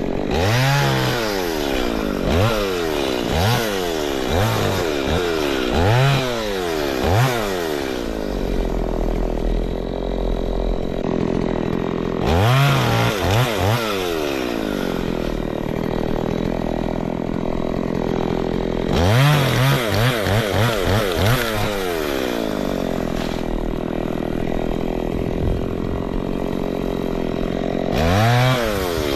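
Chainsaw engine being revved in quick throttle blips, then held at high speed for several seconds at a stretch; the pattern of revs and steady high running repeats several times.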